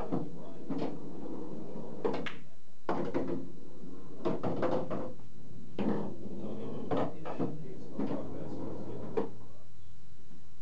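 Pool balls and cues clacking and knocking around a coin-operated bar pool table, about a dozen sharp knocks spread out at irregular intervals over a low murmur of voices.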